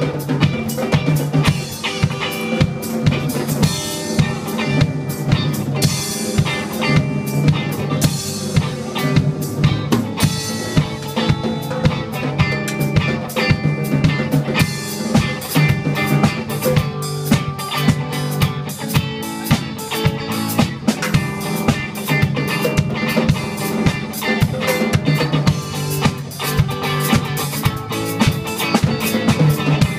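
Live band jamming: a drum kit keeps a steady beat with snare and bass drum while a guitar plays over it.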